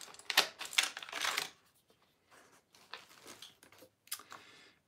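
Clicks and rattles of a Union snowboard binding being handled and turned over to check its baseplate disc. A cluster of sharp clicks comes in the first second and a half, followed by fainter, scattered clicks.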